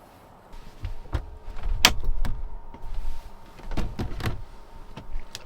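A run of knocks, bumps and deep thuds from things being handled and set down while clearing up after washing dishes, loudest around two seconds in and again around four.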